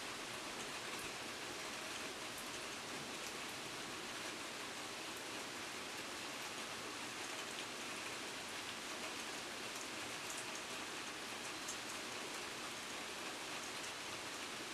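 Steady rain falling, an even hiss with scattered small drip ticks.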